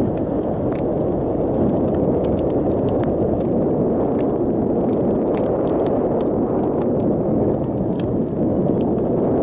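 Wind buffeting the camera microphone: a steady, loud rumbling noise, with scattered light ticks throughout.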